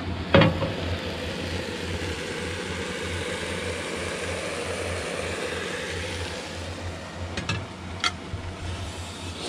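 Portable gas cooker burner running with a steady low rumble and hiss as pink snapper fries on it. There is a sharp knock about half a second in and a few light clicks near the end.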